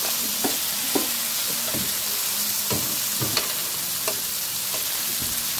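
Marinated meat sizzling as it grills, a steady hiss, with a few light clicks scattered through it.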